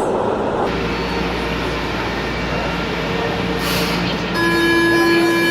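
Metro train noise with a short hiss of released air about three and a half seconds in. About a second later a loud, steady horn-like tone starts and holds for about two seconds.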